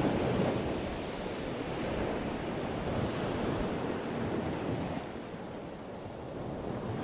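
Ocean surf washing in, a steady rushing that swells and eases, softer for a while about five seconds in.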